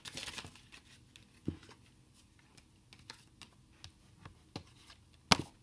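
Oracle cards being handled and shuffled by hand: scattered light card clicks and taps, a soft knock about a second and a half in, and one sharp snap near the end.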